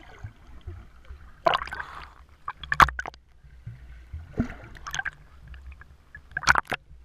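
Pool water splashing as a small child swims with big overarm dog-paddle strokes, heard from a camera held at the water's surface. There are several short splashes about a second or so apart over a steady low rumble.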